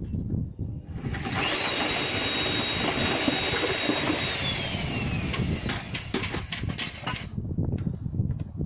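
Electric paddle mixer (a drill with a mixing paddle) churning concrete in a tub. Its motor starts about a second in with a steady high whine that later drops in pitch, and it stops about seven seconds in.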